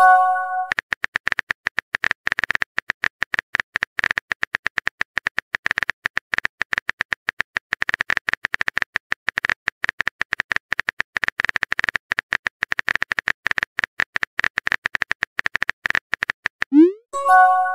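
Rapid, irregular clicking of a phone-keyboard typing sound effect. A short chime of several steady notes sounds at the start, and near the end a rising swoop is followed by the same chime.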